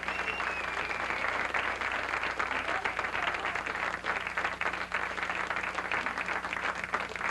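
Studio audience applauding: a dense, steady patter of many hands clapping at the end of a number.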